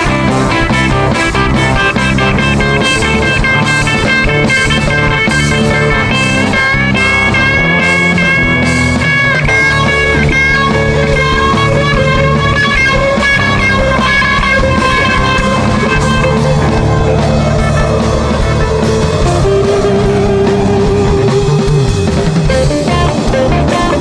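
Psychedelic rock recording: long held guitar lines over bass and a steady drum beat.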